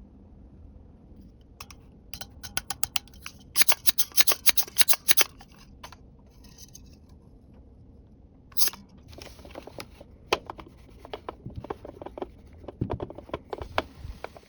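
Small plastic toy pieces and packaging handled up close: a quick run of sharp clicks about four seconds in, then scattered clicks and light rustling.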